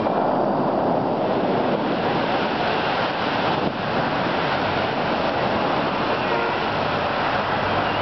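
Steady rushing and splashing of the Bellagio fountain's tall water jets and their spray falling back onto the lake.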